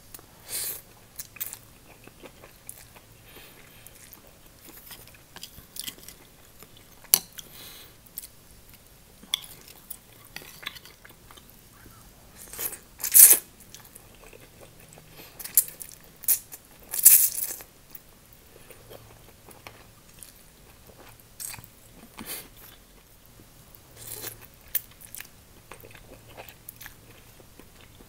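Close-up eating of glass noodles with chopsticks: scattered wet chewing and mouth clicks, with two louder slurps of noodles about halfway through, each lasting about half a second.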